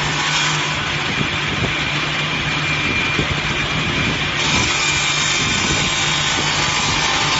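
Multi-blade wood rip saw machine running, a steady machine hum with a high, even whine; the sound turns brighter and harsher about four and a half seconds in.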